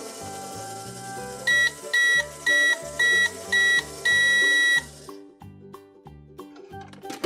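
Microwave beeping its done signal: five short, loud beeps and then one long beep, after which its running hiss cuts off. A single click follows near the end, over steady background music.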